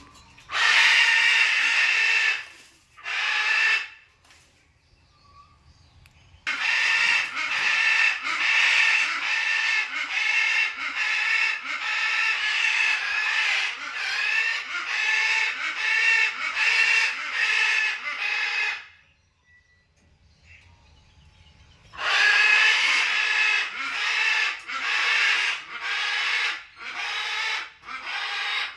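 Parrots squawking harshly in long, rapid runs: a couple of short outbursts at the start, a long run from about six seconds to nineteen seconds, then another from about twenty-two seconds on.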